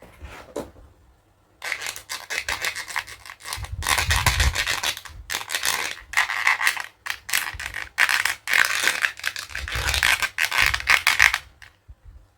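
Toy dentist kit being handled, with quick, dense scraping and rubbing strokes in several runs that start a second and a half in and stop shortly before the end.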